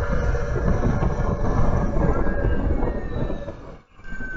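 Wind buffeting on a helmet-mounted action camera's microphone during a motorcycle ride at low speed, a dense low rumble that drops away sharply near the end.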